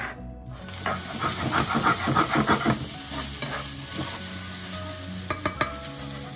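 Fried rice sizzling in a hot nonstick frying pan as a spatula stirs and tosses it: a quick run of scraping strokes between about one and three seconds in, then a few sharp taps of the spatula against the pan a little past five seconds.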